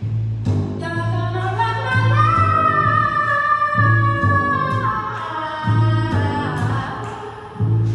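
A woman singing to her own upright double bass: the bass repeats low notes while her voice slides upward, holds a high note for a few seconds, then comes back down.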